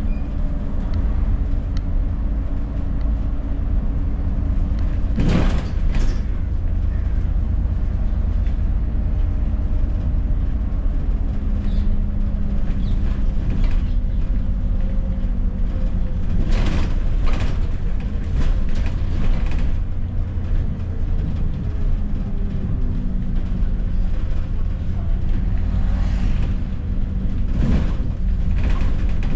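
Interior of an ADL Enviro400 double-decker bus on the move: a steady low diesel drone whose engine note shifts up and down as the bus speeds up and slows. Occasional rattles and knocks from the bodywork.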